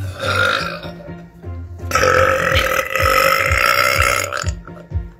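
A woman's long, loud burp lasting about two and a half seconds, starting about two seconds in, held at a steady pitch. Background music with a steady beat plays underneath.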